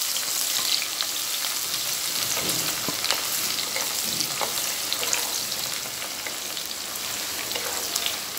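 Chopped onions sizzling in hot oil with whole spices in a frying pan, stirred with a wooden spatula that scrapes the pan now and then. The sizzle eases a little over the seconds.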